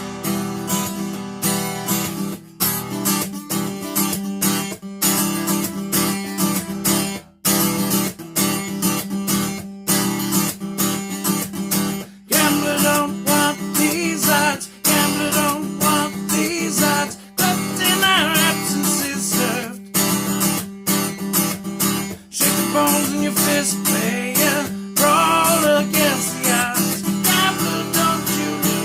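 Acoustic guitar strummed and picked in an instrumental passage of a song, with chords struck in a steady rhythm and some bending higher notes.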